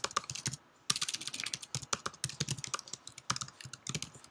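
Typing on a computer keyboard: a quick run of keystroke clicks, with a short pause just under a second in.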